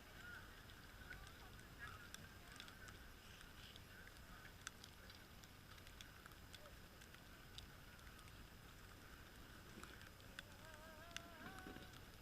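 Faint outdoor near-quiet with scattered small clicks and taps. Near the end comes a brief wavering, honk-like call.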